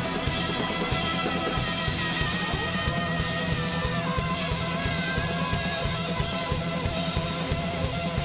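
Rock band playing live: electric guitar holding sustained notes over fast, busy drumming on a drum kit.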